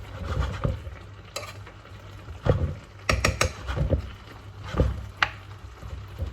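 A spoon stirring a thickened chicken pie filling in a pot on the stove, knocking and scraping irregularly against the pot, over a faint sizzle.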